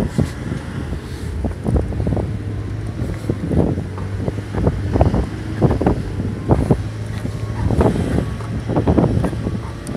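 All-terrain vehicle on low-pressure tyres under way: a steady engine drone with frequent knocks and rattles throughout.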